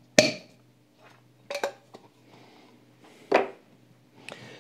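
A few separate clinks and knocks of a teaspoon and spice jar against a glass mixing bowl and the worktop while paprika is spooned into oil.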